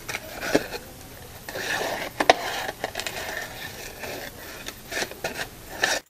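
Scissors cutting slowly through paper in short snips, with paper rustling and a few sharp clicks.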